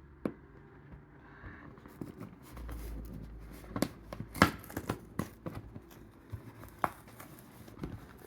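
Hot Wheels premium die-cast car package being opened: plastic blister and card crackling, with a run of sharp clicks and crinkles from about four seconds in and a low handling rumble just before.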